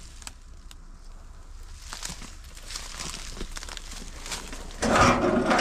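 Scattered small crackles and rustling, such as footsteps and handling outdoors, with a louder rustling noise starting about five seconds in.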